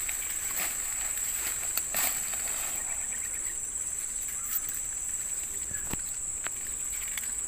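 Insects chirring in a steady, high-pitched drone, with a few faint clicks and rustles from a snakehead fish being unhooked.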